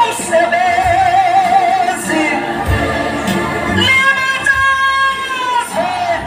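Large mixed church choir singing a Zulu gospel hymn in harmony: a wavering lead voice near the start, then a long held chord in the second half.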